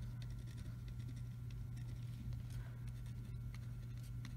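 Pen drawing short dashed lines on a paper worksheet: a series of faint, quick scratching strokes over a steady low hum.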